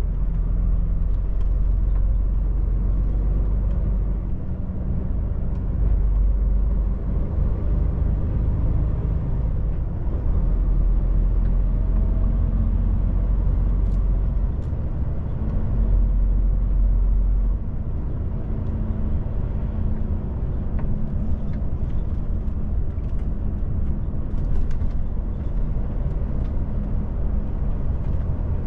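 DAF truck's diesel engine and road noise heard inside the cab while driving: a steady low rumble whose strength shifts up and down several times as the load changes.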